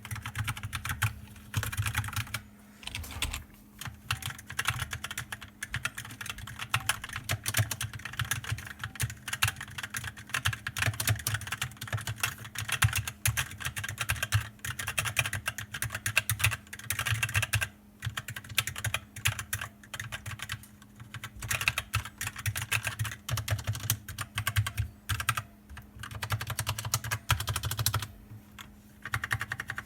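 Fast, continuous typing on a computer keyboard, with dense clicking keystrokes and a few short pauses; a faint steady hum runs underneath.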